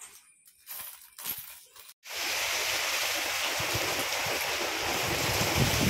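A few faint clinks of coins in a plastic basket, then, about two seconds in, heavy rain starts abruptly and runs on as a steady, even downpour.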